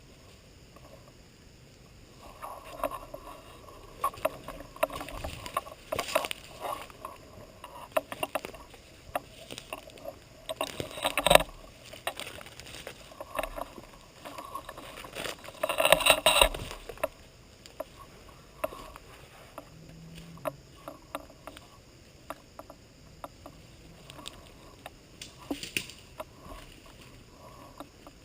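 Irregular rustling and crackling close to the microphone, as of a ghillie suit and undergrowth brushing against the camera while the wearer moves, with two louder bursts about 11 and 16 seconds in.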